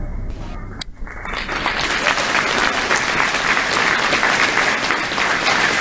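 The last sounds of a school concert band's final chord die away. About a second in, audience applause starts, a dense steady clapping of many hands.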